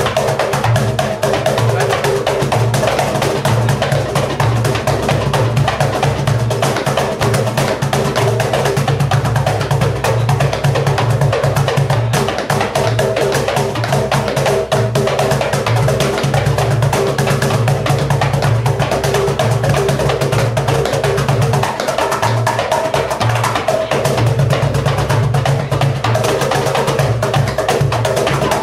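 Live instrumental music from a small group: a darbuka goblet drum beats a fast, steady rhythm with clacking wooden percussion, over held accordion chords.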